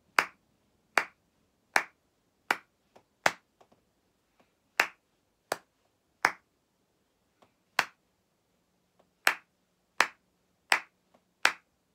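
One person clapping hands in a slow, even beat, about thirteen claps mostly three-quarters of a second apart with a few gaps twice as long. The claps beat out a beginner recorder rhythm, one clap per note: one-beat notes at the short spacing, two-beat notes at the long.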